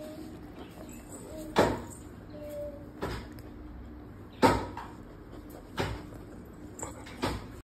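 Several sharp knocks and bumps, irregular and a second or so apart, from a dog brushing and bumping against the phone that is filming it.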